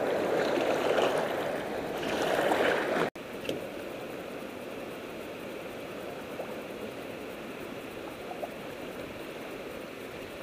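Water rushing and splashing around a paddled canoe, then an abrupt cut about three seconds in, after which a quieter, steady wash of river water continues.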